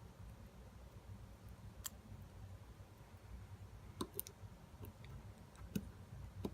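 A few faint, scattered clicks of tweezers and small tools against the phone during a battery removal, about six in all, most of them in the second half, over a faint low hum.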